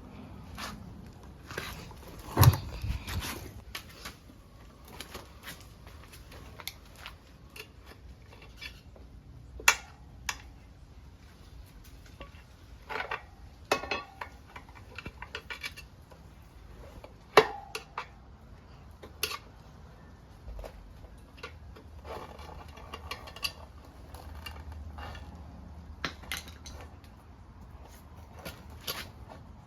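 Flathead screwdrivers clinking and scraping against a motorcycle wheel rim as a dry-rotted tire is levered off: scattered sharp metal clinks, a few ringing briefly, the loudest about two and a half seconds in and again just past halfway.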